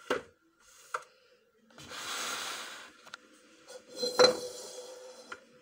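Ceramic dishes knocking and clinking on a stone countertop: two sharp knocks in the first second, a scrape of a dish sliding about two seconds in, then a loud ringing knock about four seconds in as a large white bowl is set down.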